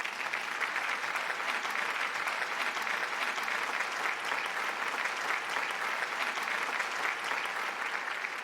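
Applause: a steady, dense patter of clapping that begins to fade near the end.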